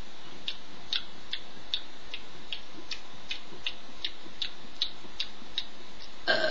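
Steady rhythmic ticking, about two and a half ticks a second, over a faint steady hiss, with a brief louder sound just before the end.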